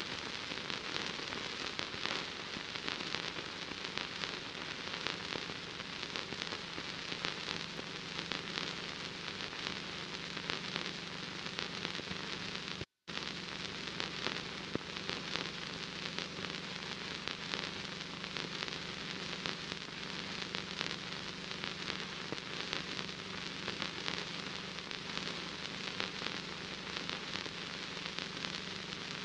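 Crackle and hiss of an old film soundtrack over a steady low hum, cutting out for a moment about halfway through.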